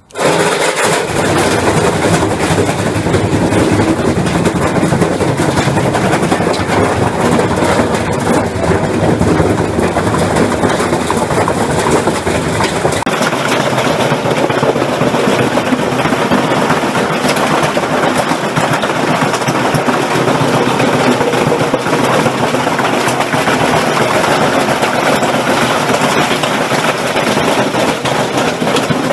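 Washing machine spinning with a brick loose in the drum: continuous loud, rapid banging and rattling as the brick hammers the drum and the unbalanced machine shakes and bounces on a trampoline. About halfway through the clatter turns higher and sharper.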